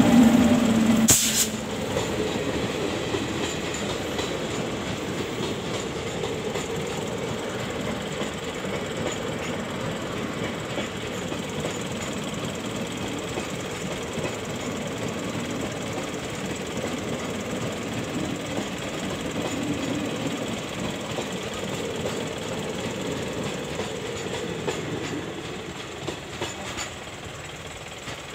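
Passenger train coaches rolling past close by, wheels clattering steadily on the track. A loud steady tone and a sharp clank come about a second in, and the rumble fades near the end as the train runs away.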